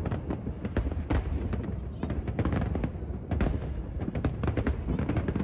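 Aerial fireworks bursting in a rapid, irregular barrage of bangs over a continuous low rumble.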